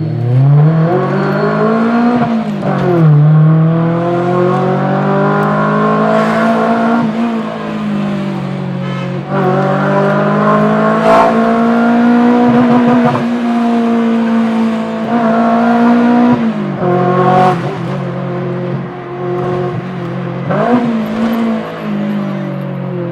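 Modified 280 hp Maruti Baleno engine running hard and loud, its pitch climbing and falling, with several sudden drops and sharp cracks as the revs come off.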